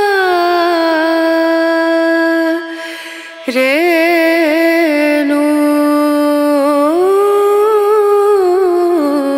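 Background music: a voice singing long, held notes that slide slowly from one pitch to the next, in the manner of a chant, with a short break about three seconds in.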